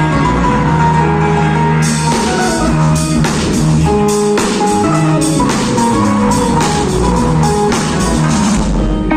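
Rock-style music with guitar and drum kit; the cymbals and drums come in about two seconds in.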